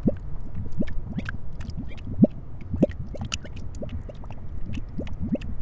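Bubbling lava sound effect: thick liquid gurgling in irregular bloops, each rising briefly in pitch, over a low rumble with light crackling.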